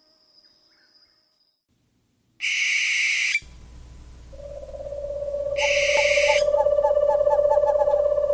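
Owl calls: two loud, harsh screeches about three seconds apart, with a steady low tone coming in under them from about four seconds in.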